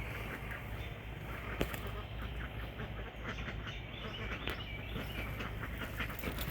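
Birds calling in a quick run of short, repeated calls, over a low steady background hum.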